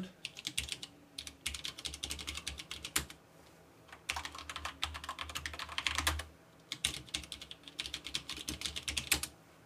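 Typing on a SteelSeries 6Gv2 mechanical keyboard with Cherry MX Black linear switches: fast runs of key clacks with a low thud of the case under them, pausing briefly about three seconds in and again about six and a half seconds in.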